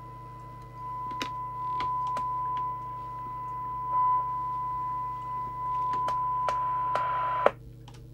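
Steady 1 kHz test tone from a Midland 77-095 CB radio's loudspeaker, received from a signal generator, growing louder and softer with clicks as the squelch preset is turned. About seven and a half seconds in, the squelch closes with a click and the tone cuts off, leaving a low mains hum.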